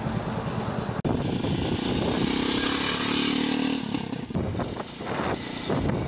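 Motorbike engine running while riding, mixed with wind rushing over the microphone; the engine note holds steady through the middle and the sound dips briefly near the end.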